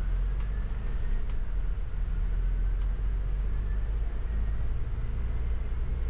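Double-decker bus running, heard from the upper deck: a steady low engine rumble with a faint whine that slowly rises and falls, and a few light rattles in the first second or so.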